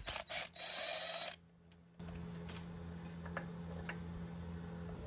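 Cordless impact wrench spinning out a small 10 mm bolt from the brake line bracket. Two quick trigger blips, then a steady run of under a second with a faint whine, after which it stops. A low steady hum follows.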